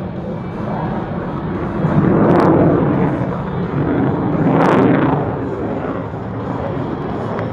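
Jet noise of a CF-18 Hornet's twin General Electric F404 turbofans as the fighter flies past, swelling to two loud peaks about two and a half and four and a half seconds in.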